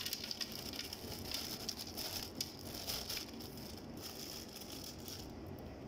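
Sliced almonds poured into a blender jar, rattling down onto banana pieces as a quick scatter of light ticks that thins out after about three seconds.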